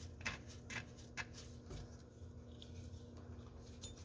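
Faint clicks, about two a second, from a wrench turning the accessory drive belt tensioner bolt to slacken the belt. They stop about a second and a half in, leaving only a faint low hum.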